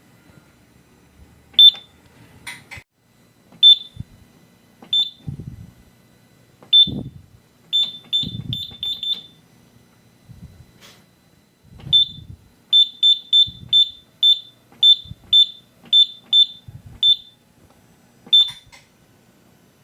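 Simplex 4100U fire alarm control panel giving short, high single-pitch beeps at irregular intervals, some in quick runs, as its keypad buttons are pressed. Soft low knocks of handling fall between the beeps.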